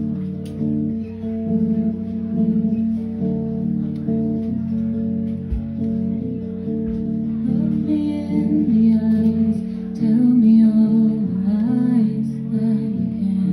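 Telecaster-style electric guitar playing sustained chords at the start of a song, with a woman's singing voice coming in about eight seconds in.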